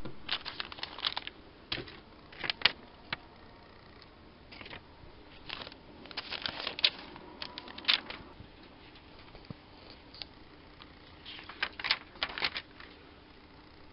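Handling noise from Lego packaging being picked up and turned over by hand: scattered clicks, taps and rustles that come in short clusters with quieter gaps between.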